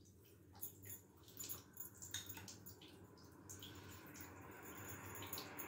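Faint, light scrapes and soft taps of a metal spoon scooping biscuit crumbs and dropping them onto custard in a glass bowl.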